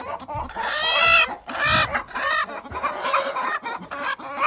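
Domestic hens clucking in a coop, a run of short calls with one drawn-out call about a second in. The hens are upset at being disturbed on their nests.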